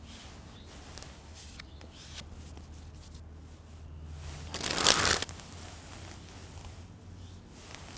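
A deck of playing cards being handled, with scattered soft clicks and snaps, then a louder riffle of the cards lasting about half a second around the middle.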